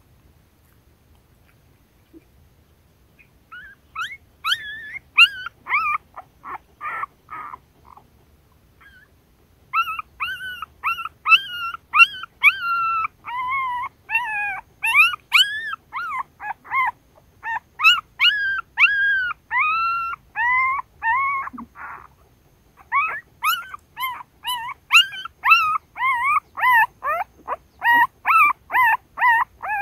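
Newborn puppies whimpering and squealing while nursing at their mother: a rapid string of short, high-pitched cries, each rising then falling in pitch. The cries begin a few seconds in and pause briefly twice.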